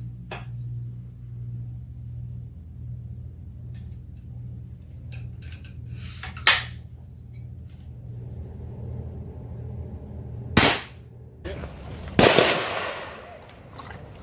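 Daisy VL underlever spring-piston rifle being worked and fired: light mechanical clicks and sharp cracks as it shoots a pellet on air alone, over a steady low hum. Near the end comes a louder gunshot with a long echoing tail as the rifle fires caseless .22 ammunition outdoors.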